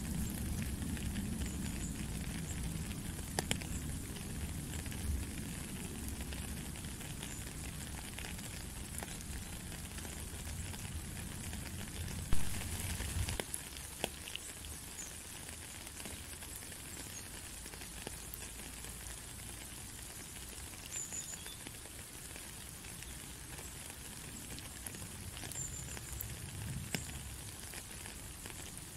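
Steady rain hissing and pattering, with scattered individual drops ticking. A low rumble underneath drops away about halfway through, and one sharper tap stands out near the middle.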